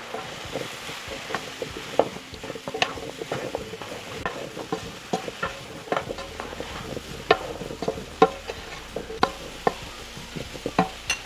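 Chopped potatoes being stirred in a pan of hot oil: the spoon knocks and scrapes against the pan in many irregular clicks over a steady sizzle of frying.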